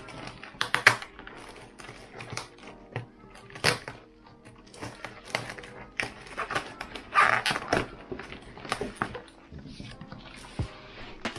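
Cardboard box and bubble wrap being handled while unpacking: irregular crinkling and crackling with sharp snaps, the loudest stretch about seven seconds in.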